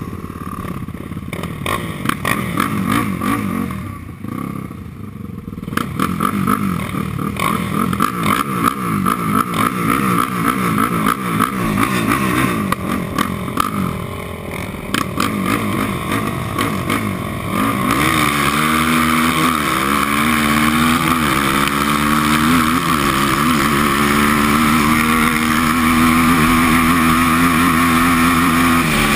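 Yamaha quad's engine running unevenly at low revs alongside other off-road engines close by, then about two-thirds of the way through pulling away and running steadily at speed, rising and falling a little, with wind rushing over the helmet-mounted microphone.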